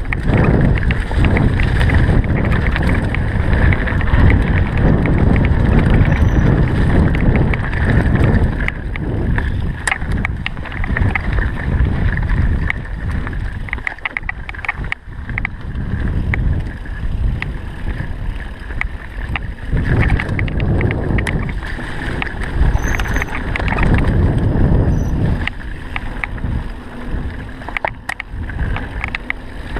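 Steady, loud rumble of a mountain bike riding over a rough trail, with many small rattling clicks and knocks, and wind on the microphone.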